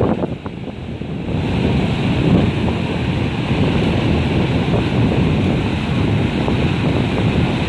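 Wind buffeting the microphone over the wash of ocean surf: a steady noise that gets louder about a second in.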